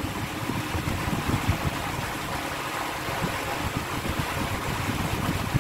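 Steady room noise: an even low rumble and hiss with no distinct events.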